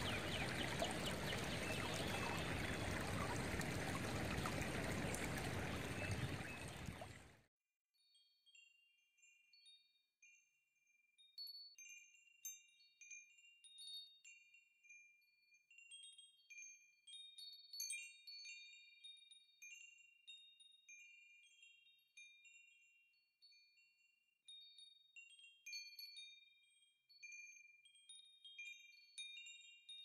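Shallow creek water running over rocks, a steady rush that cuts off suddenly about seven seconds in. After a few seconds of silence, scattered high, tinkling chime notes start up and ring sparsely through the rest.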